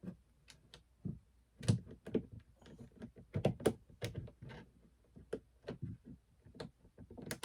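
Hands working on a plastic kayak's outfitting: an irregular run of small clicks, taps and knocks, a cluster of louder knocks between about one and a half and four seconds in.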